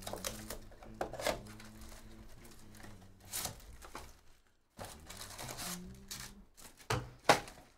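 Plastic shrink-wrap being torn and crinkled off a trading-card hobby box, then its cardboard flap being pulled open, a run of rustles and crackles. A sharp knock near the end is the loudest sound.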